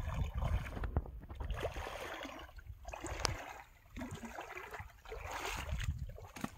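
Legs wading through shallow water: uneven swishing splashes, one stride after another.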